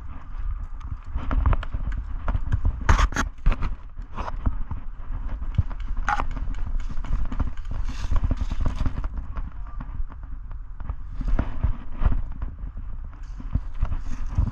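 Footsteps and gear knocking against a carried camera as its wearer moves on foot, with irregular knocks and thuds and a steady low rumble from handling or wind on the microphone.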